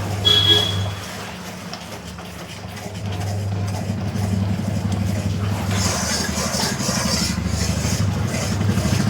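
A steady low motor hum. A brief high tone sounds about a quarter second in, and a hiss builds from about six seconds in.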